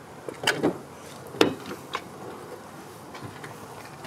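Short clicks and knocks from a car door being opened and someone climbing into the driver's seat; the loudest knock comes about a second and a half in.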